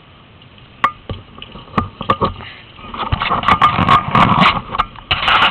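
Handling noise on a small handheld camera's microphone: a few sharp knocks about a second and two seconds in, then loud rubbing and scraping from about three seconds on as the camera is moved about.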